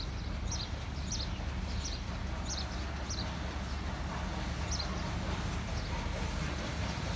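Steam train running slowly into a station: a steady low rumble, with short high chirps repeating about twice a second over the first few seconds.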